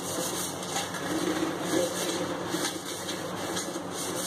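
Scouring pad scrubbing the outside of a copper jug, a steady rasping rub, working citric acid and salt over the metal to clean off black tarnish.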